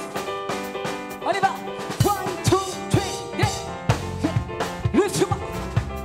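Live praise-and-worship music: a band with drum kit playing a steady beat while a woman sings into a handheld microphone.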